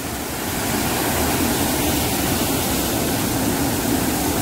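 Muddy floodwater pouring over a small concrete weir into a churning plunge pool, a steady rushing, that gets a little louder about half a second in.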